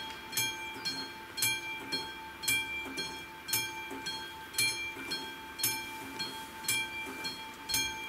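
Level-crossing warning bell sounding with the red lights flashing: a single ringing stroke about once a second, each ringing on into the next.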